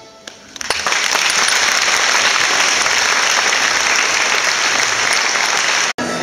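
Audience applauding, breaking out about half a second in as a solo fiddle tune ends, then cut off abruptly near the end.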